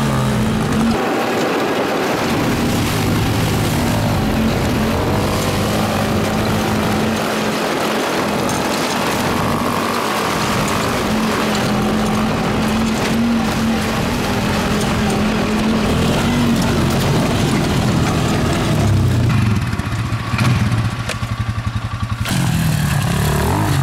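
RPS Hawk 250 dual-sport's single-cylinder four-stroke engine running hard, a steady drone as the rear wheel spins through grass and mud. About four seconds before the end the note drops away and pulses unevenly, and a different engine takes over.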